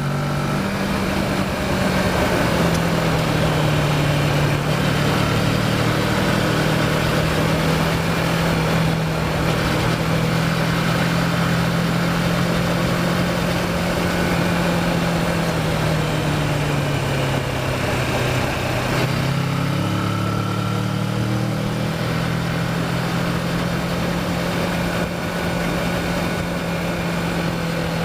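Kawasaki Versys motorcycle engine running under way with wind rush, its pitch easing down about two-thirds of the way through and then climbing again as the bike accelerates out of a corner.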